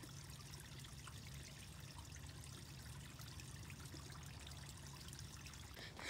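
Faint, steady trickle of running water beneath a metal drain grate. Just before the end a louder, sudden sound comes in over it.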